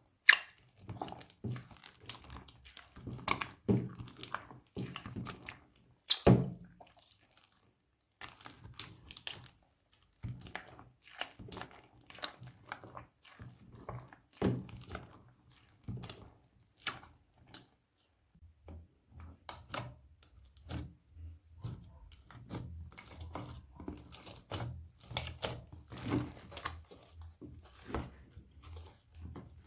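Slime being handled by hand: irregular sticky clicks, crackles and squelches, with some crinkling, pausing briefly twice.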